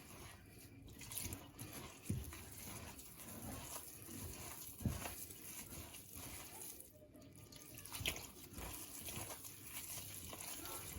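Hands mixing dry barley grits and flour in a bowl: a soft, grainy rustle with a few low knocks against the bowl.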